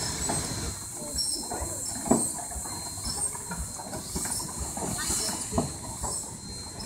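Advance-Rumely steam traction engine running as it moves along, with steam hissing and irregular low knocks and puffs.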